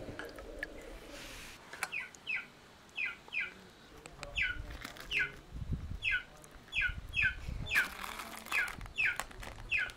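A bird calling over and over with short high notes that fall in pitch, often in pairs, about one every half second from about two seconds in; a few low thuds and a brief rustle in the second half.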